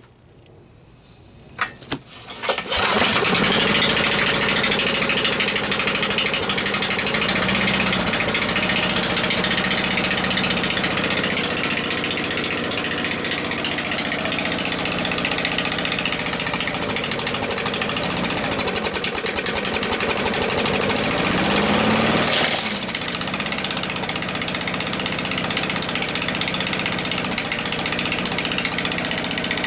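A hiss, then a small single-cylinder push-mower engine fed on propane through a drilled-out torch head catches about three seconds in and runs on. Its speed surges and sags, with a brief rise about 22 seconds in before it settles.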